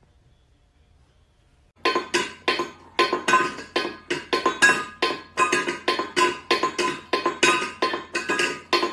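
Rapid, ringing clinks of a small hard object knocked over and over, about three or four times a second, each strike ringing at the same pitch. It starts suddenly about two seconds in, after near silence.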